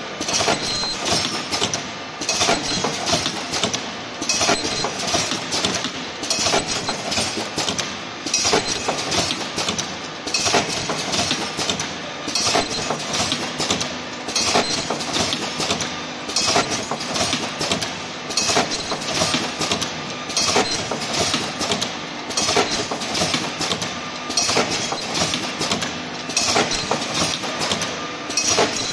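Automatic mask ear-loop welding machine with feeder running: a steady mechanical clatter of many quick clicks and knocks, in a cycle that repeats about every two seconds.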